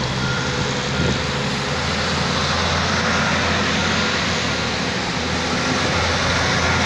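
A vehicle engine running steadily as a low hum, under a constant hiss.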